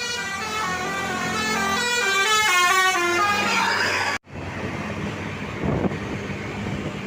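Bus telolet horn, a multi-tone musical air horn, playing a quick melody of short stepped notes that grows louder, then cuts off suddenly about four seconds in. Street traffic noise with a low rumble follows.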